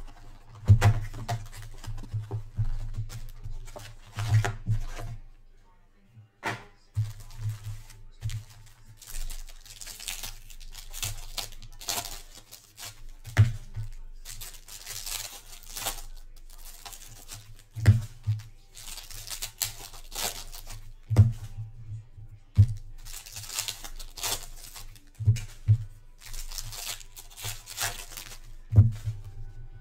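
Plastic wrap and packs from a Panini Prizm trading-card box being torn open and crinkled, with frequent crackling and tearing. Dull thumps of the box and packs being handled on the table are the loudest sounds, coming every few seconds.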